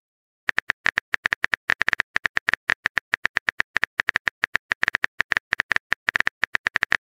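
Phone keyboard typing sound: a quick run of short key clicks, several a second, starting about half a second in, as a text message is typed out.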